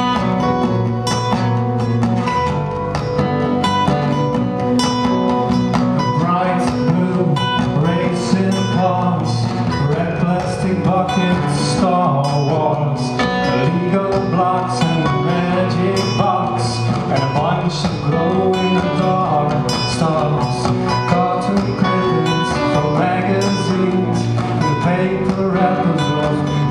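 Live band music: a strummed acoustic guitar with an electric guitar, and a man singing from about six seconds in.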